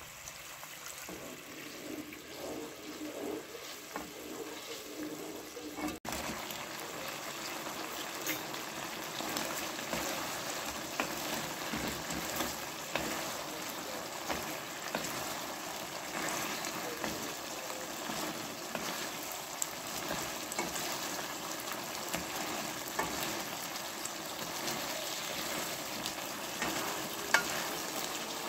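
Oyster-sauce gravy sizzling and bubbling in a nonstick pan, with many small crackles. After a cut about six seconds in, fried tofu cubes are stirred through the sizzling sauce with a wooden spatula, with a sharper click near the end.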